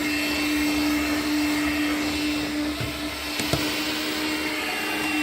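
Makita 18-volt cordless portable vacuum running steadily: a constant motor hum with a thin high whine above it and a rush of air.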